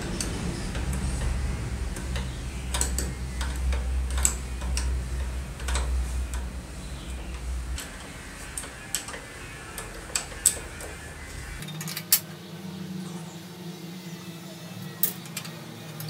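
Sharp metallic clicks and clinks of a wrench on the old typewriter's steel bolts and brackets, a dozen or so scattered strikes, louder from about halfway, over background music.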